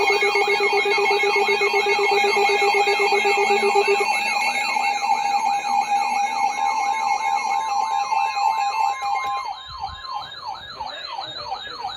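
Several electronic emergency alert tones sounding together: a siren-like rising sweep repeating about three times a second over steady alert tones. A rapid beeping stops about four seconds in, and the sound drops somewhat near the end.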